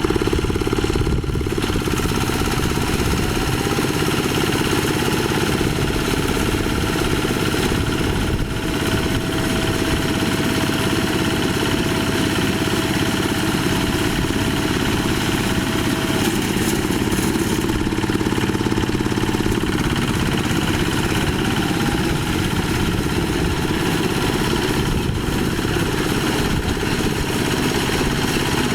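Quick H-140R light rice harvester's small diesel engine running steadily while the machine works, with a faint high whine holding for about ten seconds in the middle.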